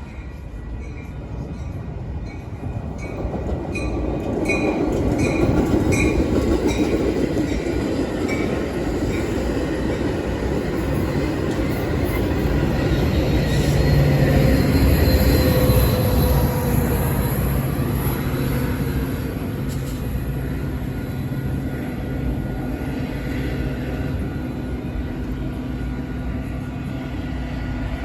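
Metra commuter train rolling slowly into a station, a steady rumble that swells and eases. A regular ringing repeats about twice a second for the first nine seconds or so, and a thin falling wheel or brake squeal comes near the middle as the train slows.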